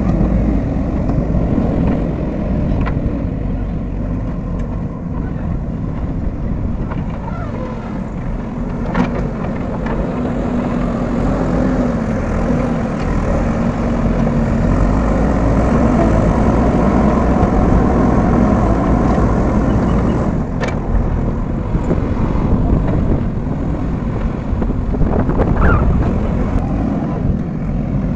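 JCB backhoe loaders' diesel engines running steadily as the machines drive and work earth, with a few sharp knocks.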